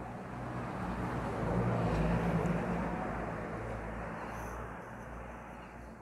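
A motor vehicle passing by, its engine and tyre noise swelling to a peak about two seconds in and then slowly fading.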